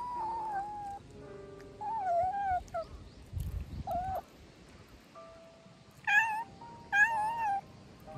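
A cat meowing repeatedly, about five short high calls that bend in pitch, over background music.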